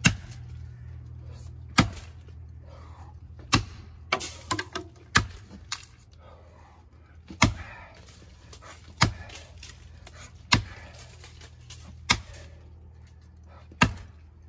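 Heavy axe chopping into the trunk of a 22-inch tree: nine solid blows of steel biting into wood, roughly every one and a half to two seconds, with a few lighter knocks between them about four to six seconds in.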